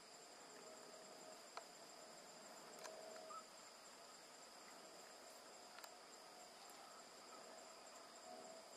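Faint, steady insect chorus: a continuous high-pitched drone, with a few soft clicks along the way.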